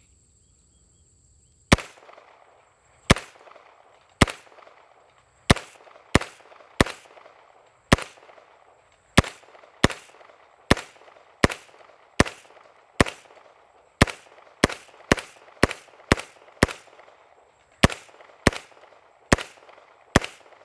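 Shots from a CMMG Banshee MK10 10mm pistol, about two dozen rounds of Federal 180-grain ammunition fired one at a time through a loaded magazine. They start about two seconds in and run at an uneven pace, roughly one every half second to second, quicker near the middle, as the delayed-blowback gun cycles round after round.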